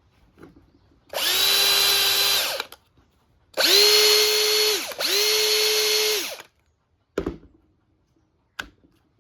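Makita DF458D 18V cordless driver drill, freshly overhauled with new carbon brushes, running free in three short bursts. Each time the motor whine spins up to a steady pitch and winds down, and the last two runs are slightly higher in pitch. Two sharp clicks follow near the end.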